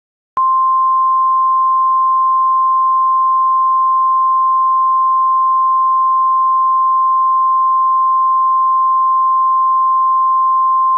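A steady, unbroken electronic tone at a single pitch, starting abruptly just after the start and held unchanged throughout. It is a loud alert tone of an emergency alert broadcast, telling listeners to stand by for the coming message.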